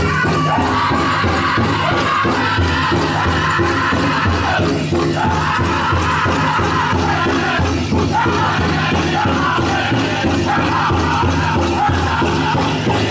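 Powwow drum group playing a chicken dance song. A large powwow drum is struck in a steady beat by several drummers in unison, under a group of men singing high-pitched in falling phrases.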